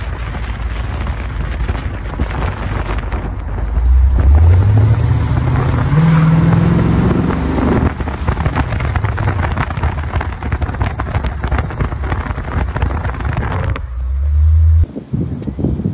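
Pontiac 350 V8 running through twin 3-inch stainless exhausts with a crossover while the car is driven, with wind noise on the microphone. About four seconds in, the engine accelerates and the exhaust note rises in pitch for about four seconds, then drops back to a steady cruise. Near the end the sound cuts off suddenly.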